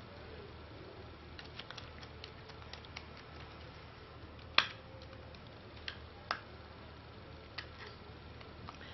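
Scattered small plastic clicks and taps from a keyboard keycap being hooked onto its clip mechanism and pressed into place, with a sharper single click about halfway through and a few more after.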